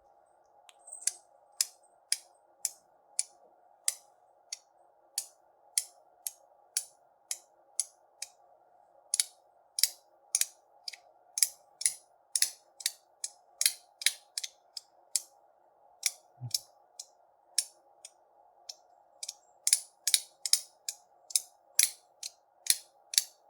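CooYoo Superconductor haptic fidget coin clicking as its halves are snapped over again and again, about two to three crisp clicks a second with a couple of short pauses. The clicks are sharp but not too loud.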